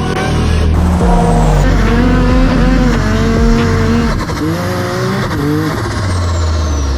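A vehicle engine revving, its pitch rising and falling, in several short clips cut together.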